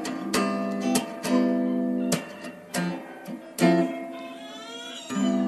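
Background music of acoustic guitar, strummed and plucked chords that ring on between strokes, ending on a long held chord.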